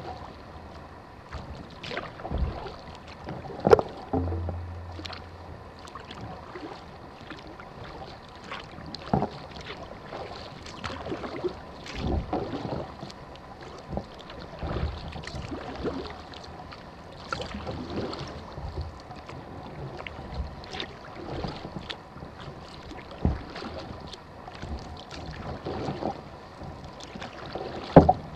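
Kayak paddling: the paddle blades dipping and splashing through the water at irregular intervals of a second or two, with water dripping between strokes. A few sharper knocks stand out, about four seconds in, about nine seconds in, and near the end.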